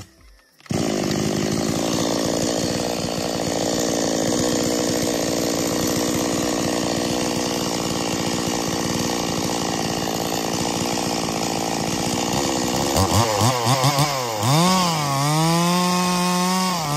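Two-stroke petrol chainsaw. It starts suddenly under a second in and runs steadily at high speed, then near the end its engine is revved up and down several times.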